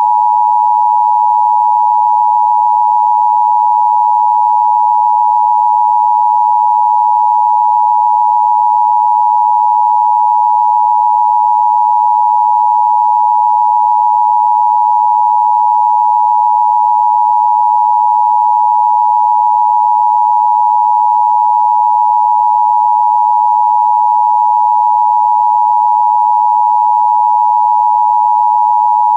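Emergency Broadcast System attention tone: a loud, steady, high electronic tone near 1 kHz, held without a break.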